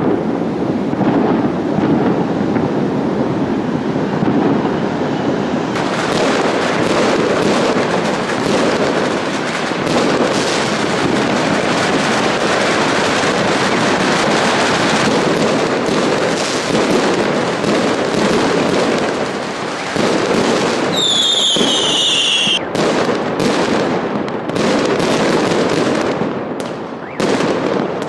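A dense, continuous barrage of fireworks going off, loud crackling and popping with no break. About 21 seconds in, a whistling firework gives a falling whistle for about a second and a half. Near the end the barrage thins into separate loud bangs.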